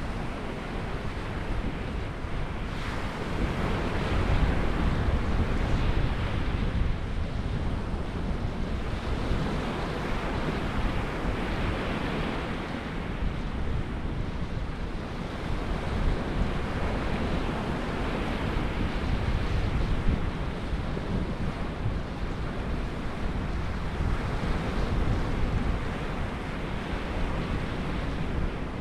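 Ocean surf washing onto a beach, rising and falling every several seconds, with wind buffeting the microphone.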